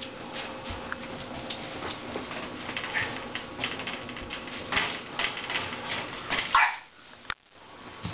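Dog yipping a few times in short high calls, the loudest about six and a half seconds in, over a run of light ticks of a puppy's claws on a tile floor.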